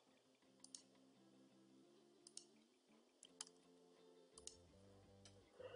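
Faint computer mouse clicks, single and double, about one a second, over quiet background music with sustained notes.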